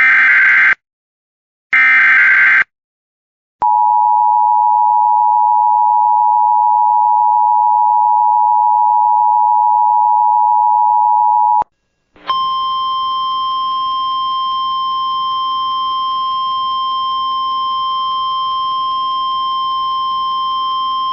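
Emergency Alert System broadcast opening: two short screeching digital header bursts, then the EAS two-tone attention signal (853 and 960 Hz together) held steady for about eight seconds. After a short gap, a second steady, buzzier alert tone with a hiss under it sounds for about nine seconds and cuts off just before the spoken warning.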